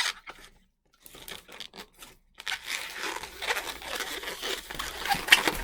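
Latex modelling balloon being handled, with rubbery rubbing and crinkling squeaks and a few sharp ticks. There are brief pauses about one and two seconds in, then steady rubbing.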